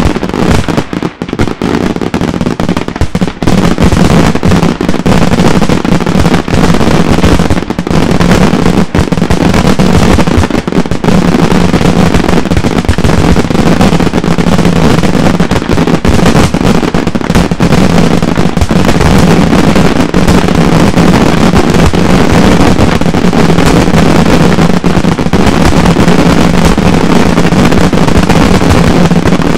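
Fireworks finale: aerial shells bursting in a rapid, unbroken barrage of bangs and crackle. It is somewhat sparser at first and runs near-continuous and very loud from about three seconds in.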